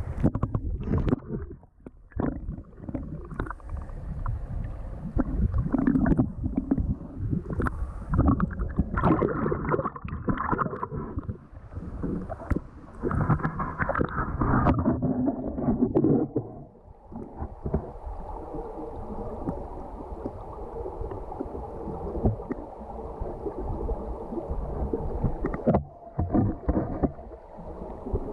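Muffled rushing and gurgling of river water heard through an action camera's waterproof housing held underwater, with irregular swells and knocks as the water moves around it. It settles to a steadier rush in the second half and dips out briefly near the end.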